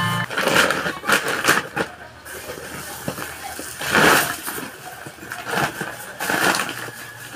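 Rustling and crunching of a woven plastic sack and the rubbish being gathered by hand into it, in irregular bursts, loudest about four seconds in.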